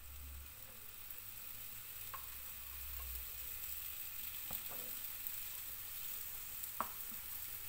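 Belgian waffle batter sizzling and steaming inside a closed Sage Smart Waffle Maker Pro as it cooks: a faint hiss that grows slowly louder, with a few small pops.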